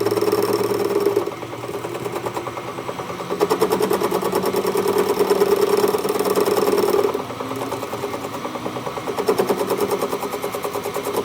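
Workshop machine running steadily with a humming drone that grows louder and drops back in turns: loud at first, quieter about a second in, loud again from about three seconds to seven, then quieter, then loud again near the end.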